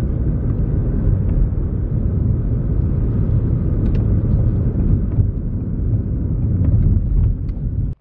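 Wind buffeting the microphone outdoors: a loud, steady, low rumbling noise.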